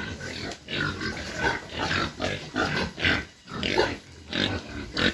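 Pigs in a pen grunting, a quick run of short calls at about two to three a second.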